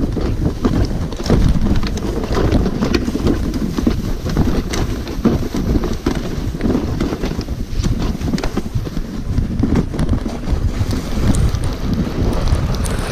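Rush of wind buffeting the microphone over the steady scraping and rattling of a sled's metal runners gliding fast over packed snow and ice, with frequent small clicks and knocks from the bumps in the track.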